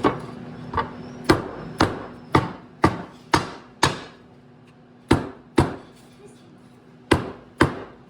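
New front main oil seal being tapped into place with a hammer: sharp, evenly spaced knocks about two a second, in runs of several with short pauses between.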